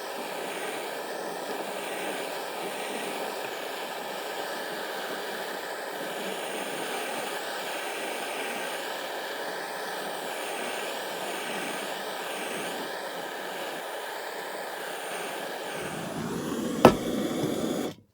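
Gas torch flame running with a steady roaring hiss, scorching the new wooden handle. Near the end comes a single sharp click, and the sound cuts off suddenly.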